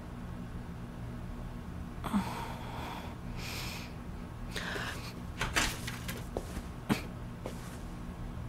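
Low steady hum of room tone with scattered short, soft rustling noises and a few sharp clicks or knocks.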